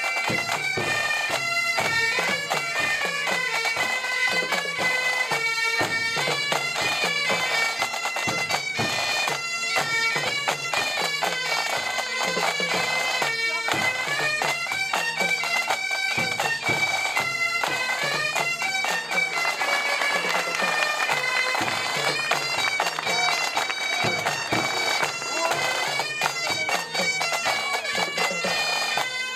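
Bagpipes playing a continuous tune, one note stepping to the next with no break.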